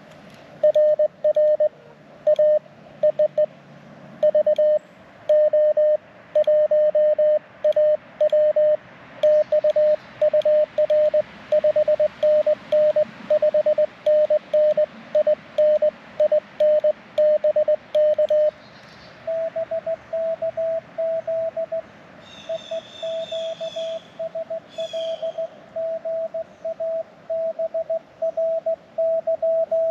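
Morse code tones from a ham radio transceiver working a POTA pileup. For about eighteen seconds a loud keyed CW tone is sent, then a quieter, slightly higher-pitched Morse signal replies. Two short high chirps sound partway through the reply.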